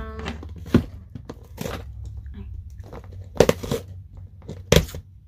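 Product packaging being handled: a series of separate crackling, crinkling knocks, the loudest cluster about three and a half seconds in.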